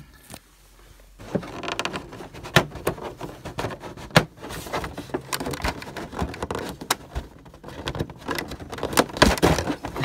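Stiff black plastic accessory tray crackling and clicking as fingers prise an accessory out of its moulded slot: a dense run of sharp clicks and crinkles starting about a second in, loudest near the end.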